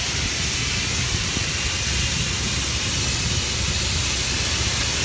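Steady hiss of wind and water on an open boat over a low, even hum from the boat's motor.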